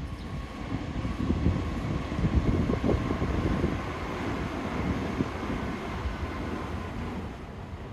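Nankai 50000 series rapi:t electric train crossing a river bridge. Its wheels make a continuous rumble and clatter on the rails, with a faint steady whine on top, easing off near the end as the train passes.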